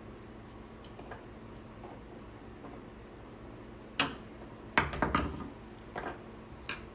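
Handling noise from work on an extension-cord plug: a few sharp clicks and knocks, one about four seconds in, a quick cluster about a second later, and a couple more near the end, over a steady low hum of room tone.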